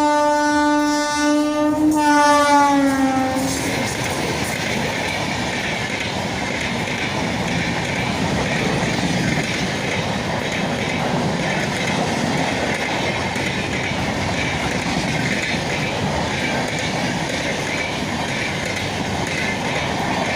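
Train horn sounding for about three and a half seconds, its pitch falling at the end as the train goes by. After the horn stops, the steady clatter and rumble of the train's wheels running along the track.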